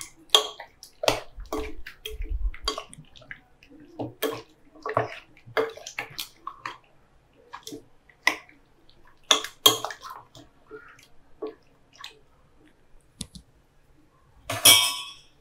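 A spoon stirring chicken pieces through a thick, creamy malai marinade in a glass bowl: irregular wet stirring strokes, one or two a second, with a longer, louder noise near the end.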